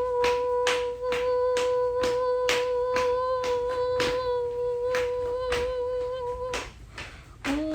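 A steady humming tone held on one pitch, pulsed by regular beats about two to three times a second, in a science-fiction sound effect. It cuts off near the end, and a new tone slides upward.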